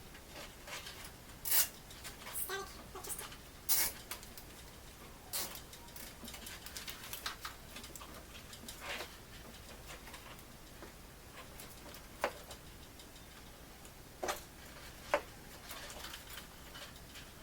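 Scattered clicks and light knocks of small hard objects being handled, at irregular intervals, with about seven sharper ones.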